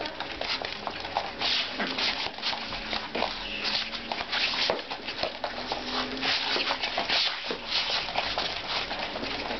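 Puppies at rough play, a busy run of scuffling with short low growls mixed in.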